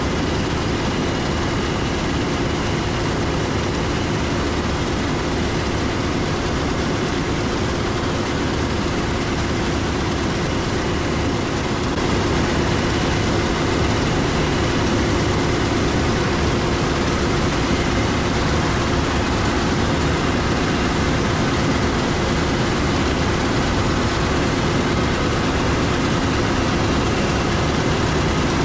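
Heavy harvest machinery running steadily: a large diesel engine with a few steady whining tones over a broad rumble. It gets a little louder about twelve seconds in.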